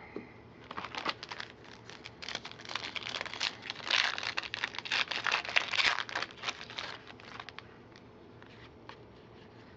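Plastic wrapper of a football card pack crinkling as it is torn open and handled, a dense crackle that is loudest in the middle and fades out near the end.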